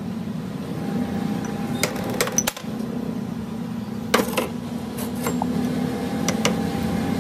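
Scattered light clicks and clinks of steel hand tools being picked up and worked against a steering tie rod end's ball-pin socket held in a vise, with a chisel set into the socket near the end, over a steady low hum.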